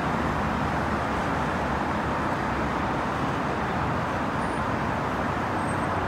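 Steady traffic noise from a busy multi-lane highway: an even wash of tyre and engine sound with no single vehicle standing out.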